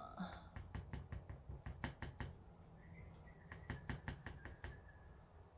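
Clear acrylic stamp block with a rubber leaf stamp tapped repeatedly onto an ink pad to ink it up: quick runs of light knocks, with a short pause in the middle.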